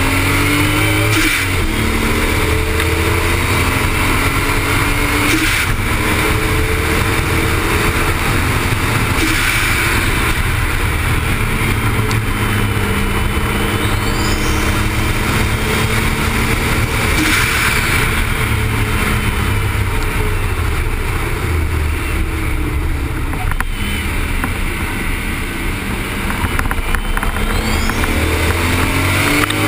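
Toyota Supra's engine at speed on a race track, revs climbing and dropping over and over as it shifts gear and brakes for corners. Heavy wind rumble and road noise come through on the low-mounted camera.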